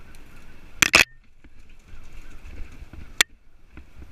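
Mountain bike riding over a dirt singletrack trail: a steady rumble of tyres and bike over the ground, with a loud double knock about a second in and one sharp knock a little after three seconds as the bike clatters over bumps.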